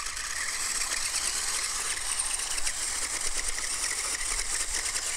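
Electric motor and gears of a Mirana Duster 4x4 RC rock crawler whirring steadily as it climbs a steep dirt slope under load.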